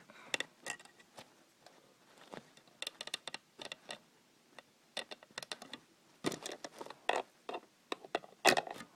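Small plastic Lego pieces clicking and tapping as they are handled, in scattered irregular clicks while a bow is worked into a minifigure's hand. The loudest click comes near the end.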